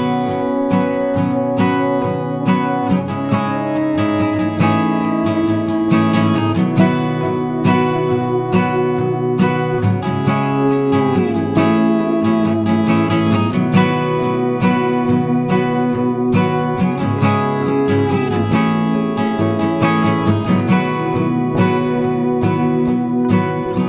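Background music: acoustic guitar, plucked and strummed, with sliding notes.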